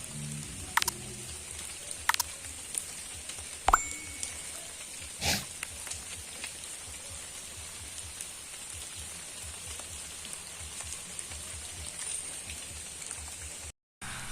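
Heavy rain falling steadily, with a few sharp knocks of drops striking something close by in the first few seconds. The sound cuts out for a moment near the end.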